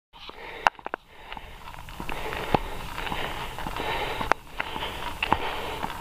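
Mountain bike ridden up a loose, dusty dirt track: a steady crunch and hiss of tyres on gravel with rattling clicks and several sharp knocks from the bike over rough ground.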